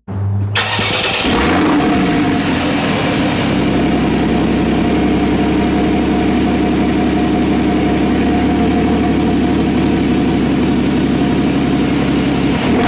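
2014 Porsche 981 Boxster's 2.7-litre flat-six heard at the exhaust: it starts about half a second in with a brief flare of revs, then settles into a steady idle.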